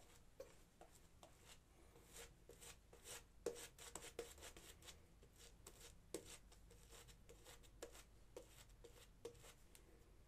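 Parker semi-slant double-edge safety razor scraping through lather and stubble on the scalp in short, irregular strokes, faint and crackly.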